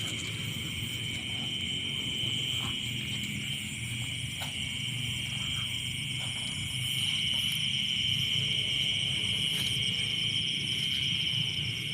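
A chorus of night insects trilling in a shrill, steady drone. It grows a little louder from about seven seconds in, and a few faint clicks sound over it.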